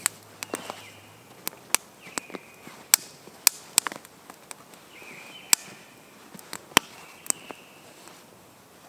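Small wood fire crackling in a hobo stove: irregular sharp pops and snaps, a dozen or so, several of them loud.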